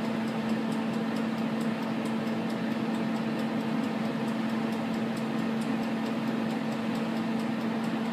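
Della XL 5.8-quart air fryer running near the end of its cook cycle: its fan hums steadily at one low pitch, while its mechanical timer dial ticks faintly and evenly.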